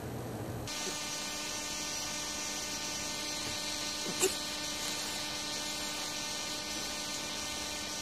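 Steady electrical buzz made of many even tones, starting just under a second in. About four seconds in comes one brief squeak, likely a puppy's yip.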